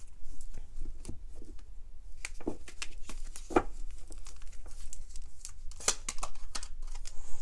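A deck of tarot cards being shuffled by hand: cards slapping and sliding against each other in irregular soft clicks, a few louder ones about three and a half and six seconds in.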